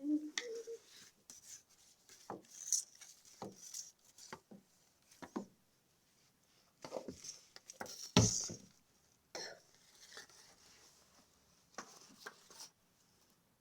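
Scattered short knocks, clicks and rubbing sounds, the loudest a little after eight seconds in, with a brief low pitched sound right at the start.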